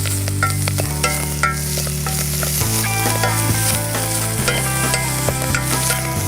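Chopped wild garlic and Alexanders frying in hot hazelnut oil in a pan, a steady sizzle with stirring. Background music with low sustained notes changing every second or two plays underneath.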